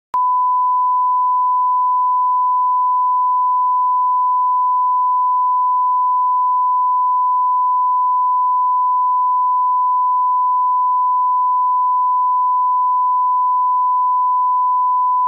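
A loud, steady 1 kHz line-up test tone, the pure reference tone that goes with broadcast colour bars, cutting in abruptly at the start and holding unbroken.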